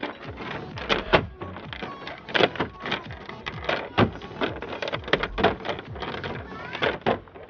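Irregular knocks and clatters, a few each second, over a low background noise.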